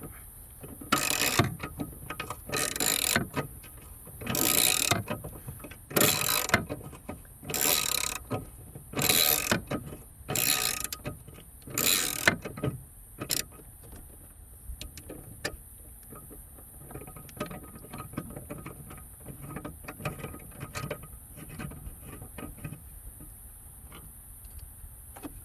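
Hand ratchet wrench working a tight bolt loose: about eight bursts of ratcheting clicks, each about half a second long and roughly a second and a half apart, then fainter scattered clicks and ticks.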